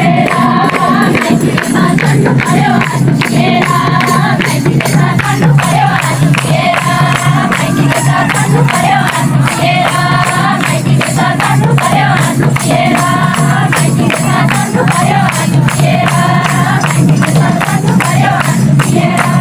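Loud, continuous music: singing over a quick, steady percussion beat with jingling, tambourine-like strokes.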